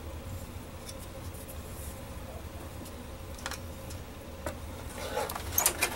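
Plastic model-kit parts trees being handled in a cardboard kit box: a few light clicks and rustles over a low steady hum, getting busier and louder near the end.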